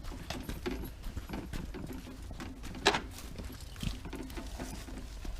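Footsteps walking at a steady pace, a run of light taps with a sharper click or knock about three seconds in, over a low steady rumble.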